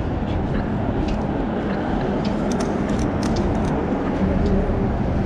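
City street traffic noise, steady and fairly loud, with a run of light clicks about halfway through.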